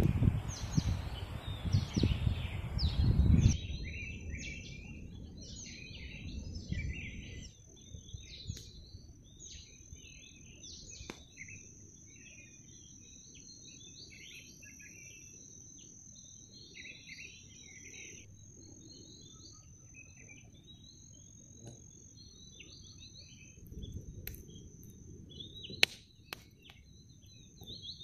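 Many small birds chirping and twittering, over a steady high thin drone. The first few seconds are covered by loud low rumbling noise.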